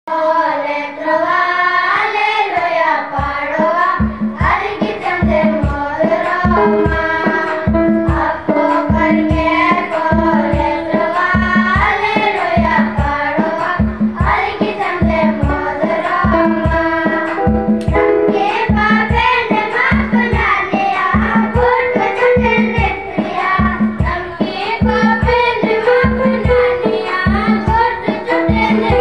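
A group of boys singing a Malto-language song together through microphones, over a steady drum beat of about two strokes a second that comes in about three seconds in.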